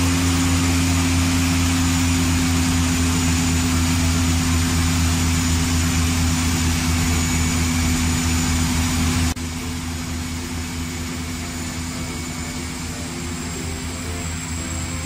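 Floatplane's propeller engine running steadily at high power as the plane speeds across the water, a deep, even drone. About nine seconds in, the sound drops suddenly to a quieter recording of a floatplane engine.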